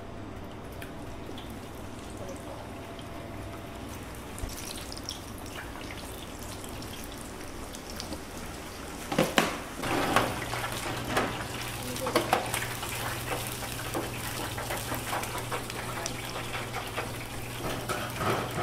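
Chicken karaage deep-frying in a commercial fryer, the oil sizzling steadily. From about nine seconds in, a metal mesh skimmer stirs and scoops in the oil, knocking against the steel fryer, and a steady low hum comes in.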